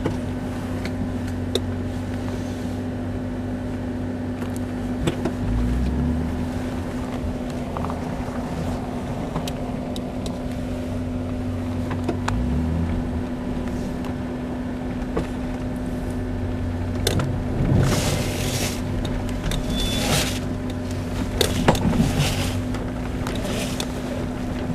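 Off-road vehicle's engine running steadily while driving in snow, its pitch shifting twice. Several short bursts of noise come in the later part.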